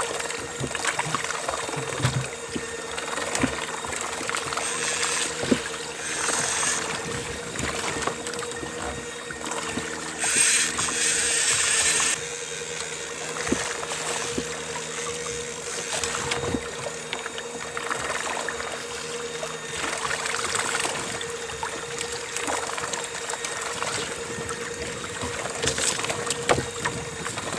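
Sea water rushing and lapping along a moving kayak's hull, with a steady high whine throughout. The rush grows louder for about two seconds near the middle.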